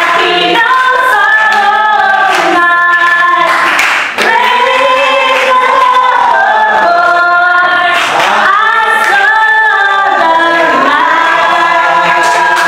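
A woman singing loudly into a microphone through a sound system, with other voices singing along and hands clapping.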